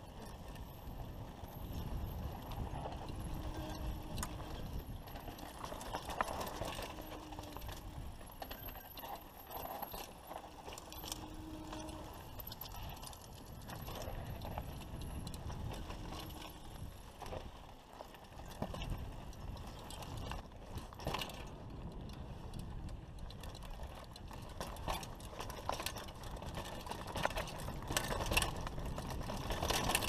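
Mountain bike ridden down a rough dirt trail: the bike's parts rattle and clatter over the bumps without letup, over a steady low rumble of tyres on dirt and wind on the microphone.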